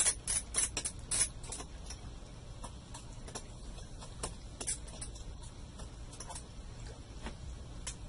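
Small sharp clicks and scratches of a precision screwdriver on the laptop's keyboard screws and plastic casing: a quick run of clicks in the first second and a half, then scattered single clicks.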